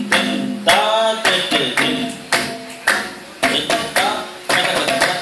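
Several tablas played together in unison: loud, sharp strokes about twice a second, each ringing on, with deep bass drum strokes that bend up and down in pitch.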